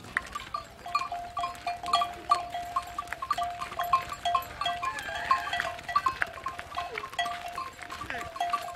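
Bells on a herd of water buffalo clanking as the animals walk: one ringing note, struck again and again a few times a second.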